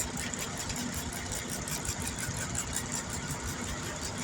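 A vehicle engine idling steadily, with a faint fast ticking over the low rumble.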